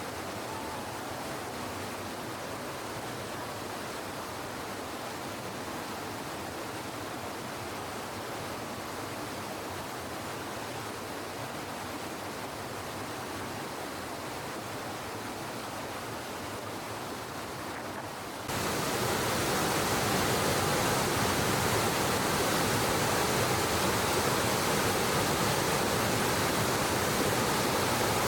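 Steady rushing of flowing water, an even hiss without pauses or distinct splashes. About two-thirds of the way through it cuts suddenly to a louder, fuller rush.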